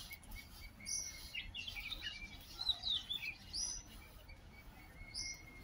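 Birds chirping: short, high calls scattered through, one of them a quick curved note near the middle, over a faint low rumble.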